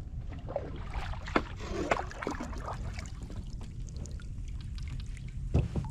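Water splashing and trickling against a kayak out on a river, with scattered small knocks and drips over a steady low rumble.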